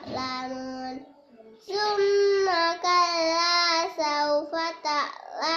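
A young child chanting Quran verses in a drawn-out, melodic recitation voice, holding long notes, with a short pause about a second in.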